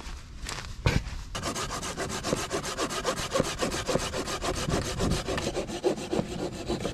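Hand saw cutting through a log with quick, even back-and-forth strokes, starting just over a second in after a single knock.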